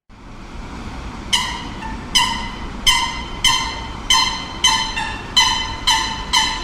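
A bell ringing in a steady run of strikes, starting about a second in and coming about twice a second, each ringing on briefly, over steady city background noise.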